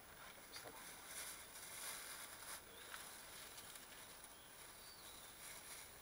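Near silence: faint outdoor background hiss with a few faint ticks.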